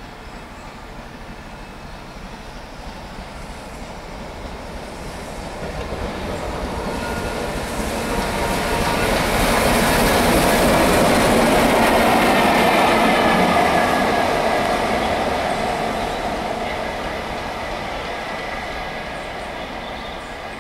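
LMS Stanier Class 5MT 'Black Five' 4-6-0 steam locomotive No. 44871, hauling a single coach, passing slowly. It grows louder on the approach, is loudest about ten to thirteen seconds in as it goes by, then fades as it draws away.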